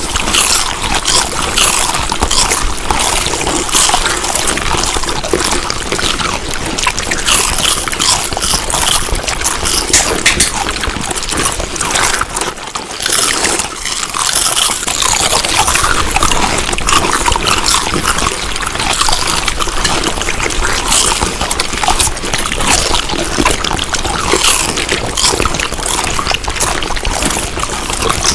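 Close-up wet chewing of food: dense moist crackles and smacking clicks, with a short quieter break about halfway through.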